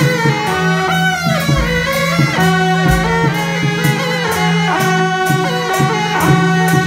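Live temple procession music: wind instruments playing a melody over a steady low drone, with gong and cymbal strikes about twice a second.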